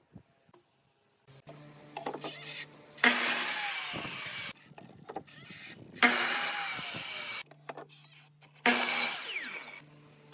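A power tool cutting wood in three separate passes, each lasting about a second and a half, with a sudden start and a fade. A low steady hum sounds between the passes.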